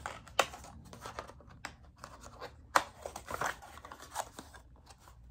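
Paperboard boxes handled by hand: scraping and rustling with several sharp clicks and knocks, the loudest about half a second in and near three seconds in.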